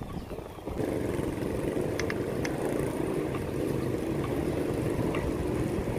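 Steady low rumble of a bicycle rolling along a concrete street, tyre and wind noise, which grows louder about a second in; a couple of faint ticks come in the middle.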